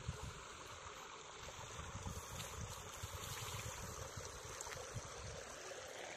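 Shallow water trickling and sloshing in a flooded rice-paddy channel, stirred by a man wading and working his hands in it. A steady hiss runs under soft, irregular low sloshes and small knocks.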